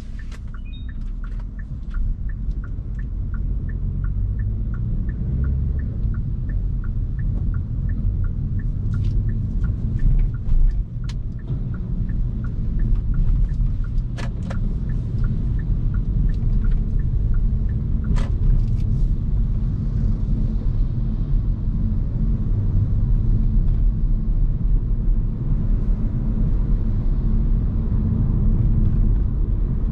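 Hyundai Kona Hybrid driving, with a steady low road and tyre rumble that slowly grows louder. A regular light ticking, about two to three a second, runs through roughly the first dozen seconds and then stops, and a few sharp clicks come in the middle.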